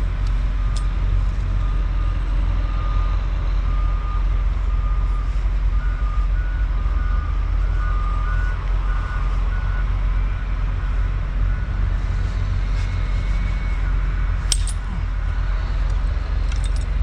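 Steady low rumble of truck engines idling, with a truck's reversing alarm beeping about twice a second, alternating between two close pitches, from about one second in to about ten seconds in. A single sharp metal click comes about fourteen seconds in.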